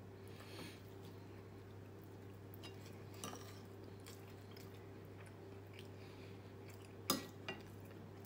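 A metal spoon clinking against a glass serving bowl of mung bean stew and the dishes. There are a few light clinks, then a sharp clink about seven seconds in followed by a smaller one, over a steady low hum.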